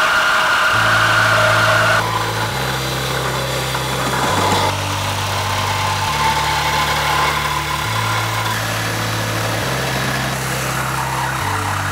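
Background music with a steady stepping bass line, over a power tool cutting into the car's body metal.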